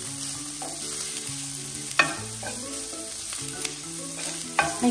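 Leftover cooked rice frying in oil in a stone-coated pan and being stirred with a wooden spatula: a steady sizzle with scraping, and two sharp clicks of the spatula against the pan, about two seconds in and near the end. Soft background music plays underneath.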